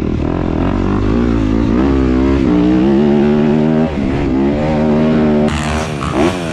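Yamaha YZ dirt bike engine revving up and easing off repeatedly as it is ridden around a motocross track. About five and a half seconds in, the sound cuts to another dirt bike, which revs up once.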